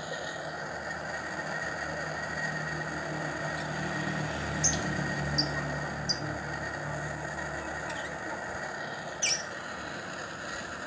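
Pliers gripping and bending the heat-softened flaps of a cut PVC pipe: four short, sharp high squeaks and clicks, three close together in the middle and one near the end, over a steady background hiss and a low hum in the middle.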